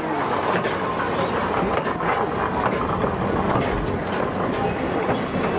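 C11 steam tank locomotive moving off a railway turntable onto the track, with wheel clicks over the rail joints.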